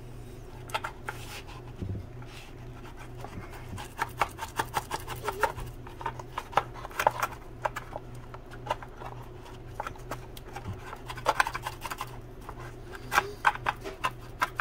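A bristle chip brush scrubbing and dabbing epoxy inside a thin plastic RC boat hull: irregular scratchy taps and rubs that come in short clusters, over a low steady hum.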